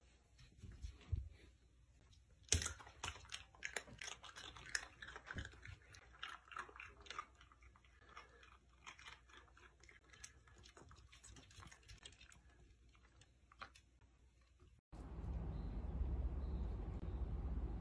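Long-haired dachshund crunching and chewing a small hard bone-shaped biscuit: a quick run of crisp crunches and tooth clicks, the loudest bite about two and a half seconds in. Near the end the chewing gives way abruptly to a steady low noise.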